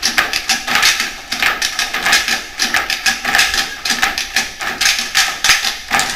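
A fast, even run of sharp percussive claps, about four a second, with no melody.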